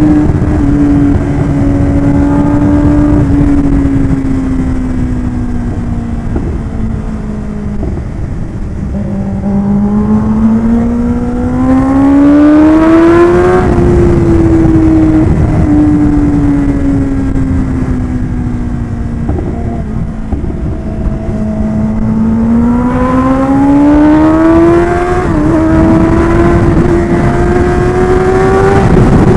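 Kawasaki Ninja ZX-10R's inline-four engine running under way, its note sinking as the throttle eases and climbing again as it pulls, twice over, with wind rushing over the microphone.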